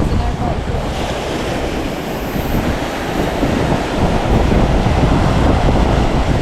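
Wind buffeting the microphone over the wash of ocean surf breaking on the beach.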